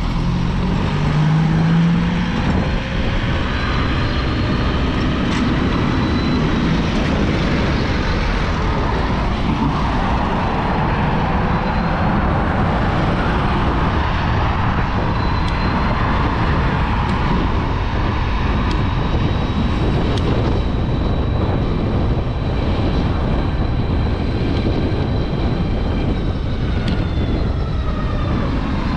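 Suzuki e-Let's electric scooter on the move: a steady rush of wind and road noise, with a thin high whine that shifts in pitch and falls away near the end as the scooter slows.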